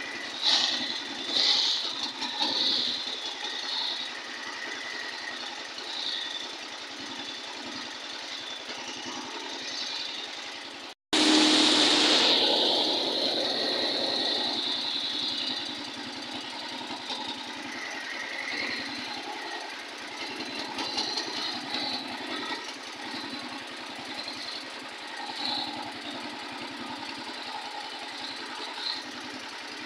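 Boat motor running steadily with water rushing past the hull. About eleven seconds in the sound cuts out for an instant. A louder rush of engine and spray follows for a few seconds as a jet ski passes close by.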